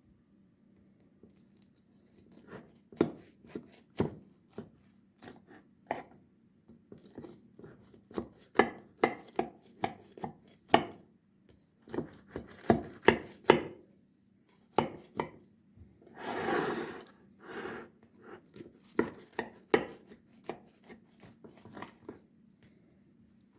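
Knife cutting on a cutting board, an irregular run of sharp taps and crisp crunches, with one longer rasping stroke about two-thirds of the way in.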